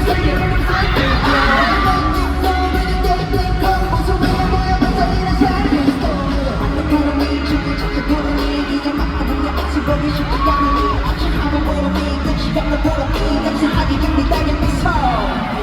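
Live K-pop performance over a concert sound system: sung vocals over a loud backing track with a heavy bass beat.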